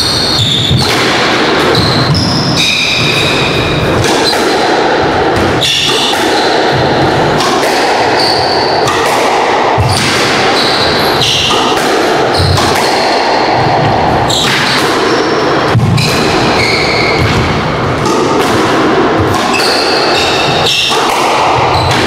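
A squash rally: the ball cracking off rackets and court walls at an irregular pace, with sneakers squeaking in short high chirps on the wooden court floor, all echoing in the enclosed court.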